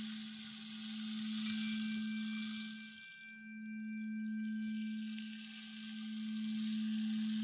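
Crystal singing bowl sounding a steady low tone that slowly swells and fades, under the even hiss of a bamboo rain stick pouring. The hiss stops briefly about three seconds in as the rain stick is turned over, then starts again, and two thin higher ringing tones sound for a few seconds in the middle.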